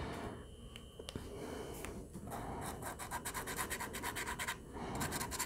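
Acrylic paint pen nib rubbing and scratching on sketchbook paper, faint, with a quick run of short back-and-forth strokes in the middle as white paint goes over darker swatches.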